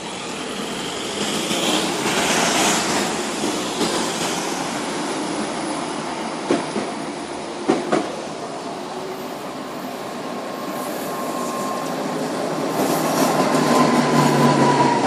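Tram running on its rails, with a few sharp clunks around the middle and a whine that comes in during the second half as it grows louder.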